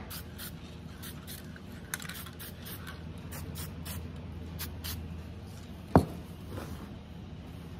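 Aerosol toner can sprayed in many short puffs of hiss, adding more colour to a wooden chair arm. A single sharp knock about six seconds in is the loudest sound.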